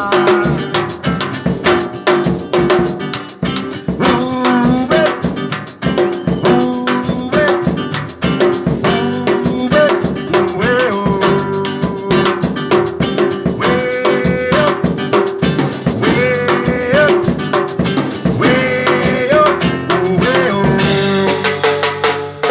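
Instrumental passage of a song: a drum kit and percussion keep a steady beat under a wavering, pitch-bending melody line, with acoustic guitar in the band.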